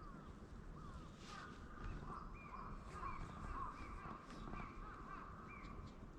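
Birds calling: a run of short, repeated calls, about one or two a second, with a higher-pitched set of calls joining in about two seconds in.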